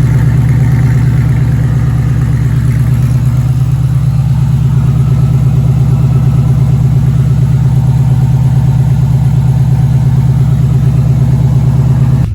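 LS-swapped V8 running steadily through a 3-inch Hooker BlackHeart header-back exhaust fed by long-tube headers, with a low, even, pulsing exhaust note. The sound changes abruptly at the very end.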